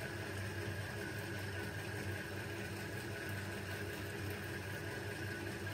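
Steady background hum: room tone with a low drone and a faint constant high whine, and no distinct handling sounds.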